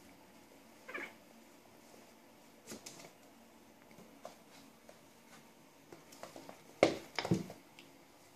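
Two cats play-fighting: a short meow about a second in, a few light scratches, then a burst of scuffling and thumps of bodies and paws on a wooden floor near the end, the loudest part.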